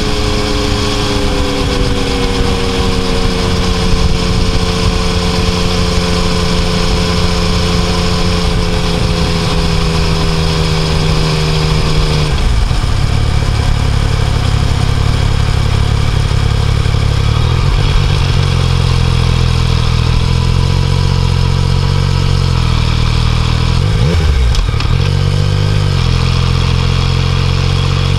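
Yamaha Tracer 900's three-cylinder engine running under way, its note slowly falling for the first ten seconds or so. About twelve seconds in the engine note changes abruptly, as at a gear change, and it then runs steadier, with a quick rise and fall of revs near the end.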